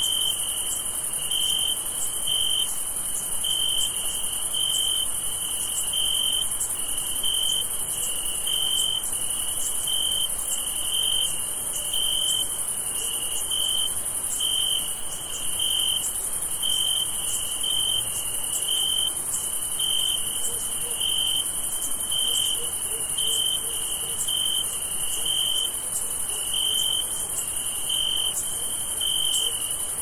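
Crickets chirping at night in a steady rhythm of about one chirp a second, over a continuous high-pitched insect trill.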